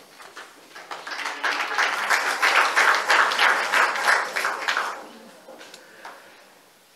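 Audience applauding in a theatre hall, building about a second in and dying away about five seconds in.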